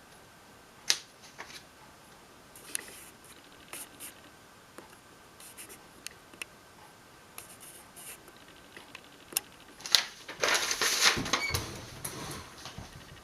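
Scattered sharp clicks and knocks of hard objects being handled, with a denser stretch of scraping and rattling about ten seconds in.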